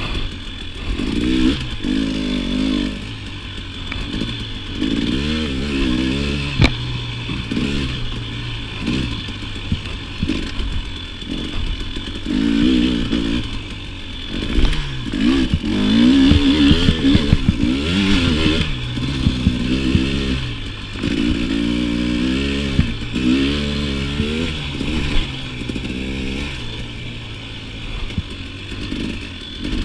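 KTM 300 two-stroke dirt bike engine revving up and down over and over as the throttle is worked, with a sharp knock about seven seconds in.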